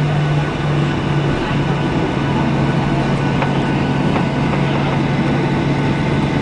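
Cabin noise inside a Boeing 737-800 with CFM56-7B engines: a steady engine drone and rush of air with a constant low hum.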